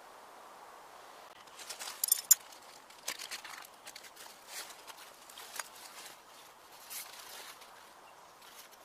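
Rustling of the bivi bag's waterproof fabric and crunching of dry leaf litter as a person gets out of the bag and moves about beside it, with a sharp cluster of crackles about two seconds in and scattered footsteps after.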